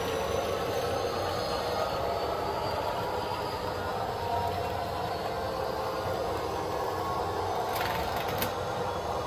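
A train running steadily along the track with a continuous rumble and rattle, and a few sharp clicks about eight seconds in.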